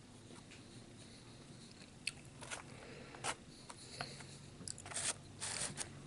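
Faint handling sounds of someone eating a meal: a few short scrapes and clicks starting about two seconds in, with more of them near the end.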